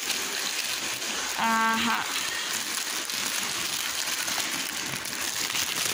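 Clear plastic packet crinkling and rustling as it is handled and torn open by hand. A short hum of voice comes about a second and a half in.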